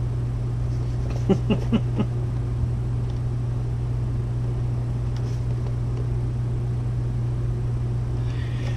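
Steady low mechanical hum, with a few light knocks about a second and a half in as cardboard Funko Pop boxes are set on a stack.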